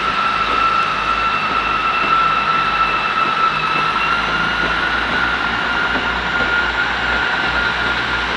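Class 159 diesel multiple unit pulling away, its underfloor diesel engines running under power with a steady high whine that edges slightly up in pitch as it accelerates.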